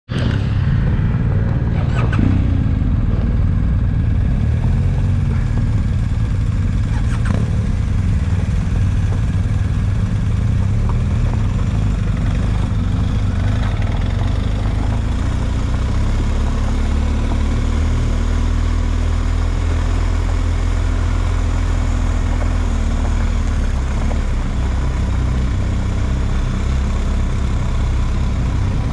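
Off-road vehicle engine running continuously, its pitch rising and falling gently partway through.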